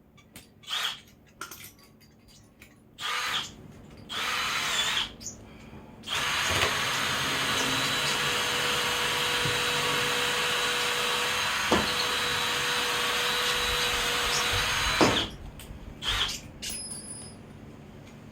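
Power drill run in several short trigger pulls, then held steadily for about nine seconds before stopping, followed by two more brief bursts.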